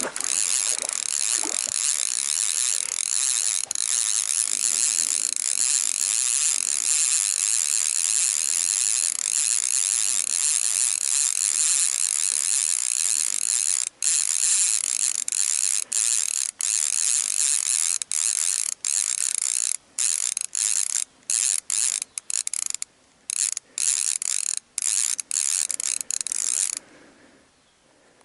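Fishing reel drag clicking out line without a break as a hooked lake sturgeon runs with it. About halfway through it starts and stops in short spurts, and it stops a little before the end.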